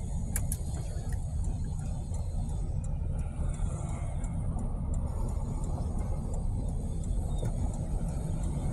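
Steady low rumble of a vehicle in motion: engine and tyre noise on the road.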